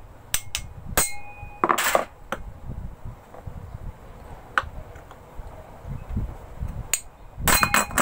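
Hammer striking a steel shaft used as a drift, knocking a jammed ceiling-fan stator out of its thin cover: several sharp metallic knocks at uneven intervals, some with a brief ring, the loudest about two seconds in and a quick run of them near the end.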